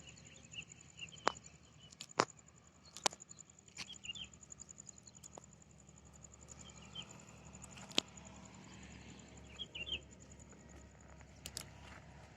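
Faint outdoor ambience with small birds chirping in short bursts every few seconds and a steady thin high whine. About six sharp clicks stand out as the loudest sounds, scattered through it.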